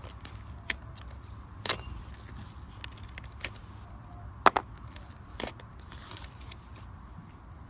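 Slime being squeezed and worked by hand, giving a handful of sharp wet pops and clicks at irregular intervals, the loudest a double pop about halfway through, over a low steady hum.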